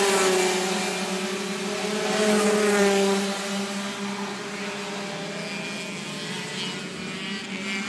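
A pack of 125 cc two-stroke racing karts passing at speed. Several engine notes overlap and rise and fall in pitch as the drivers work the throttles, loudest at the start and again about two to three seconds in, then fading as the karts pull away.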